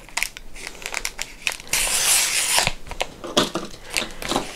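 A handmade envelope of glossy printed paper being handled and opened, paper crinkling and rustling in short crackles, with one longer rasp of paper about two seconds in.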